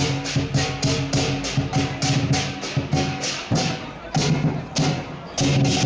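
Music with a fast, even percussive beat of about four strikes a second over sustained low tones, which drop out briefly twice in the second half.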